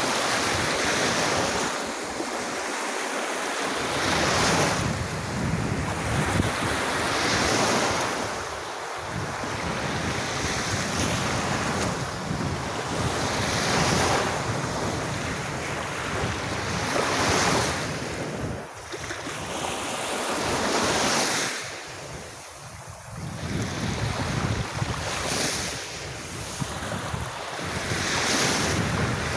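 Sea waves washing onto a beach, surging and falling back every few seconds, with wind rumbling on the microphone.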